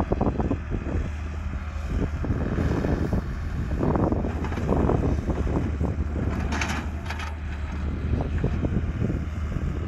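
Hitachi EX100 wheeled excavator's diesel engine running steadily while its bucket scrapes and knocks through loose stone, with irregular clatters of rock. A brief hiss about two-thirds of the way through.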